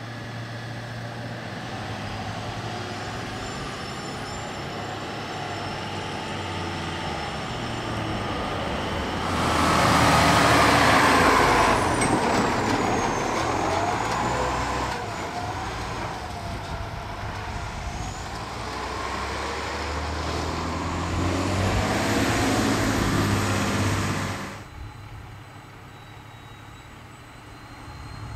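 Diesel fire engine running with a steady low hum, then passing close for about fifteen seconds with a loud rush of engine and road noise, before it drops back to a quieter idle.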